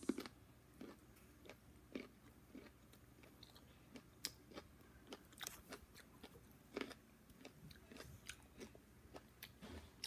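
A person chewing a mouthful of broccoli and chicken close to the microphone: soft, irregular crunches and wet mouth clicks, one or two a second.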